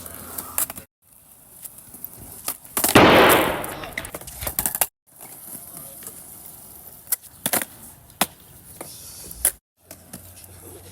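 Skateboard tricks on hard ground: scattered sharp clacks of the board popping and landing. About three seconds in, a loud rough rush of noise runs for about a second and a half. The sound drops out briefly between clips.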